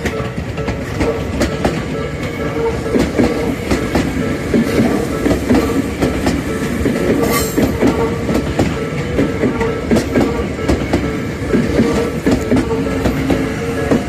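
Electric commuter train on the Tobu Tojo Line passing at speed, its wheels clattering over rail joints, with a steady tone running underneath.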